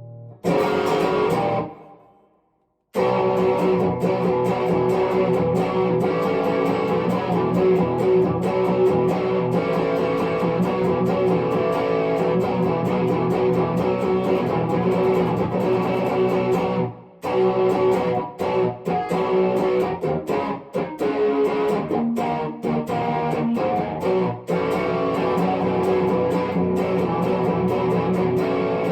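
Epiphone 1959 Les Paul Standard electric guitar being played through an amplifier: a short phrase, about a second of silence, then continuous playing with sustained notes. In the middle the playing stops short several times in quick succession before running on.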